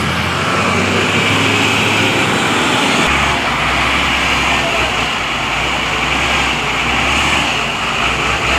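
Heavy vehicle engine running steadily under a constant wash of noise, its low drone shifting in pitch about three seconds in and again near the end.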